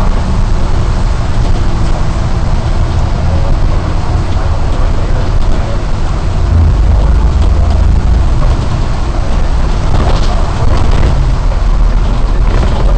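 Non-air-conditioned double-decker bus under way, its diesel engine giving a steady low rumble under a continuous haze of road noise from the wet carriageway in heavy rain.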